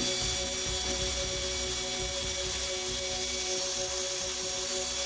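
Steady, loud rushing hiss of air, running unbroken over background music with held tones.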